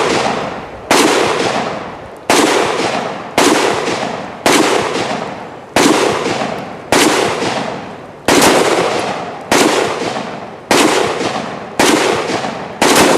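Gunshots fired one after another at a steady pace of about one a second, eleven in all, each a sharp crack followed by an echo that dies away over about a second.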